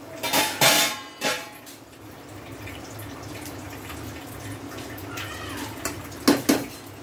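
Parboiled basmati rice being ladled into a pot of biryani gravy. A metal ladle scrapes and knocks against the pot about a second in and again near the end, with a steady faint bubbling between.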